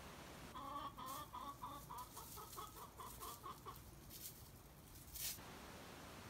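Hen clucking in a quick string of short calls for about three seconds, typical of a hen that wants the occupied nest box to lay. A few rustles follow, with one sharp click near the end.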